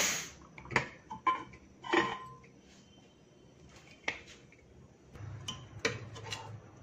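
Pressure cooker lid being twisted open and lifted off: a sharp clack as it comes free, then metal clinks and knocks of the lid and cooker. Near the end a ladle clinks and scrapes against the inside of the cooker, stirring the cooked masala.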